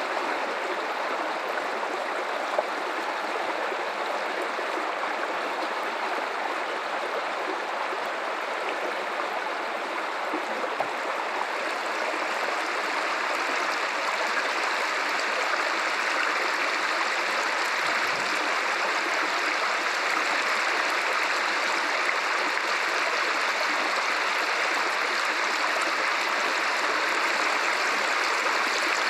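River water running in a steady, continuous rush, growing slightly louder about halfway through.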